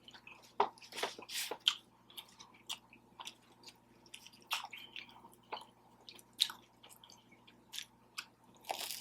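A person chewing and biting food close to the microphone, with irregular wet smacks and crunches.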